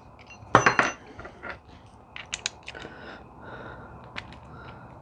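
Small metal mounting hardware (bolts, nuts and washers) clinking as it is taken out of its packaging, with a loud cluster of clinks just over half a second in and scattered single clicks after.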